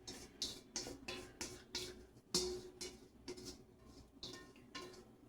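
A utensil scraping the last of the beaten egg mixture out of a mixing bowl, in quick strokes about two or three a second, some with a faint ring from the bowl.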